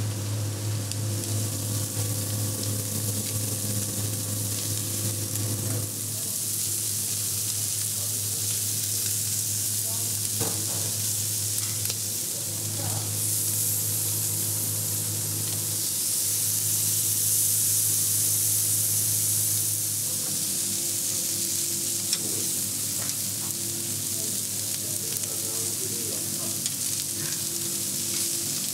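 Minced-meat ćevapi, pljeskavica, chicken and red peppers sizzling on a charcoal grill grate: a steady hiss that swells for several seconds midway, with a few clicks of tongs. A steady low hum runs under the first six seconds and then stops.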